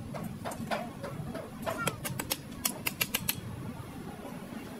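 A quick run of about ten light, sharp taps about two to three seconds in, with a few softer taps before them, over a steady low background rumble.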